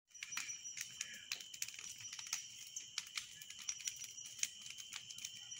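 Wood campfire crackling, with irregular small pops and snaps, over a steady high-pitched hum.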